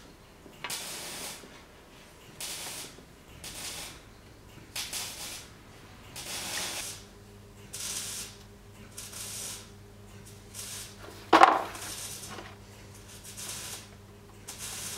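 Repeated strokes of hand abrading, an abrasive rubbed along a workpiece about once every second or so, with one sharp knock about eleven seconds in. A low steady hum comes in about halfway through.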